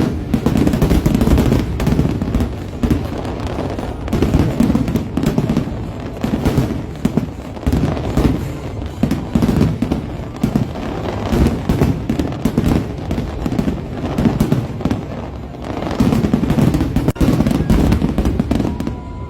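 Fireworks going off in quick succession: a dense run of overlapping bangs and crackles from aerial shells.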